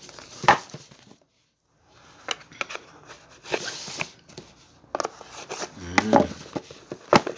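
A smartphone's cardboard retail box being opened: irregular scratching, tearing and crinkling with sharp taps and clicks. The sound drops out completely for about half a second just over a second in.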